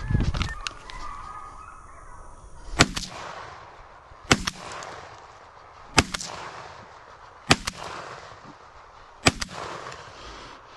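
Shotgun fired five times in steady succession, about a second and a half apart, each shot a sharp crack followed by a short echo.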